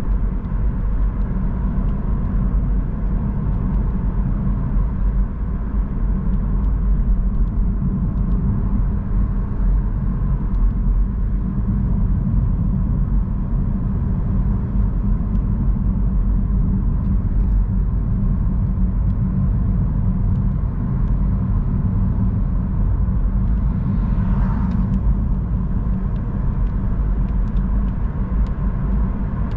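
Steady low rumble of a car driving along a wet road, engine and tyre noise. There are faint scattered ticks, and a short swell of hissing noise near the end.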